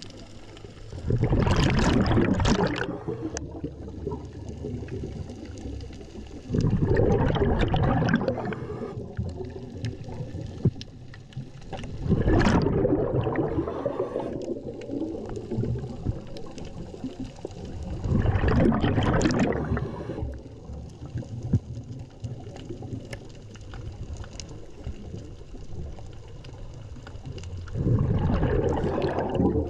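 Scuba regulator breathing heard underwater: five loud bursts of exhaled bubbles, each about two seconds long, mostly five to six seconds apart with a longer pause before the last, and quieter breathing between them.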